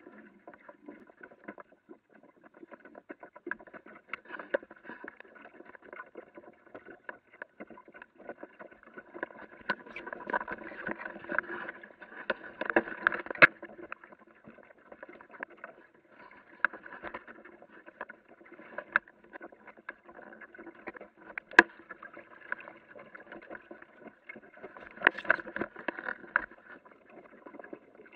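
Water lapping and splashing against the hull of a small Aquamuse sailing dinghy under way, with a steady patter of small clicks and knocks that swells in a few places.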